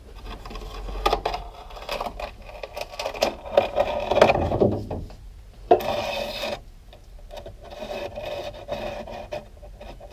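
Side window glass and its rubber seal being worked out of a steel van window frame: irregular rubbing and scraping with a few sharp knocks, loudest about halfway through.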